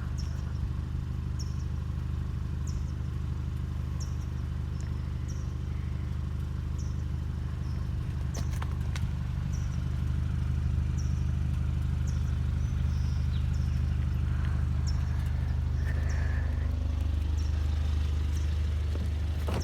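Kia Stinger's turbocharged 2.0-litre four-cylinder engine idling steadily while parked, hot just after a full-throttle launch run. Faint high-pitched ticks repeat roughly once a second over the hum.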